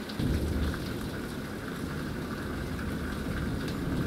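Rolling thunder: a deep rumble comes in about a quarter second in and slowly fades, over the steady hiss of rain.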